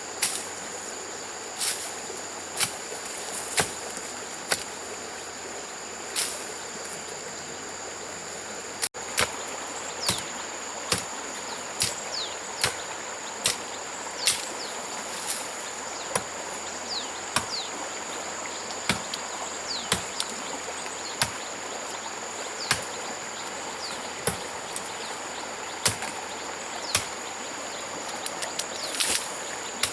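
Steady high-pitched drone of insects over the rush of a stream, with sharp knocks about once a second.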